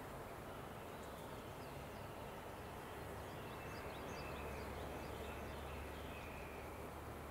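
Quiet outdoor ambience: a steady background hiss with faint, short high chirps of a distant bird in the middle, and a low steady hum coming up about four seconds in.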